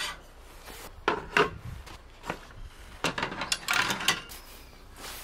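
A mug and small metal lanterns being set down on the wooden slat shelves of a folding metal-framed rack: scattered knocks and clicks with light rubbing, two sharp ones about a second in and a run of them from about three to four seconds in.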